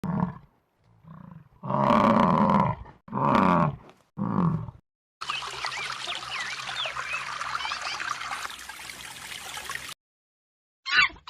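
A big cat roaring in a bout of five calls, two of them long and loud. Then several seconds of birds chirping over rushing water, cut off suddenly near the end.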